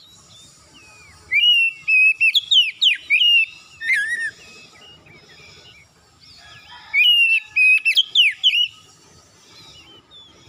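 Oriental magpie-robin singing loud whistled song in two phrases of about two to three seconds each, full of quick rising and falling whistles. Fainter chirps come between the phrases.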